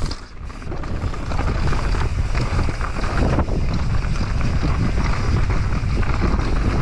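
Wind buffeting a GoPro action camera's microphone at riding speed, with the mountain bike's tyres rolling over the dirt trail and small knocks from the ground. It builds over the first second, then stays steady.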